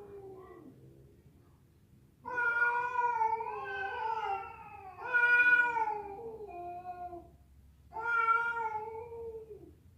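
Domestic cat yowling (caterwauling) in long, drawn-out, wavering calls. One call trails off at the start, and after a short pause come several more, each lasting a few seconds, separated by brief gaps.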